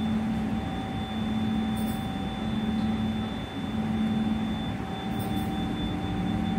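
Steady machine hum: a low drone with a thin, high, steady whine above it, dipping slightly about three and a half seconds in.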